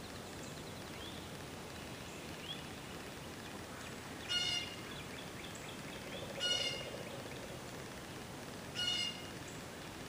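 A bird giving three short nasal calls, each rich in overtones, about two seconds apart, over a steady background hiss with faint chirps from other birds.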